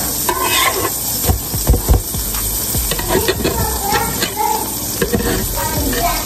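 Pancakes sizzling on a hot flat-top griddle, with scattered taps and clicks of a spatula against the griddle as they are turned.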